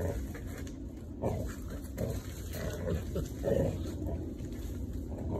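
Dog making a string of short, low growls and grunts while it tugs at a large fallen branch, the wood dragging through the dry leaves.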